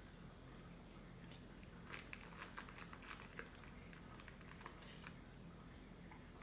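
Light scattered clicks and taps of kitchen items being handled, with a sharper click a little over a second in and a brief rustle about five seconds in.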